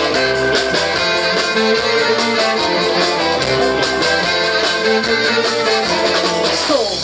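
Live rock band playing an instrumental break, with guitars to the fore.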